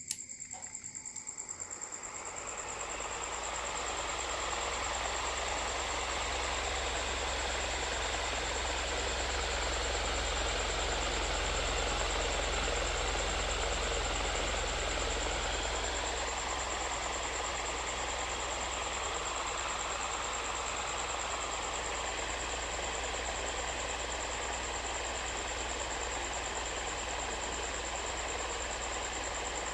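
Small high-speed DC motor driving a cardboard mini ceiling fan: a click, then the motor spins up over about three seconds and runs steadily.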